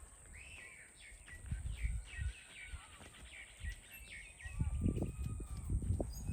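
Small birds chirping and twittering in quick short calls, followed from about four and a half seconds in by low rumbling noise.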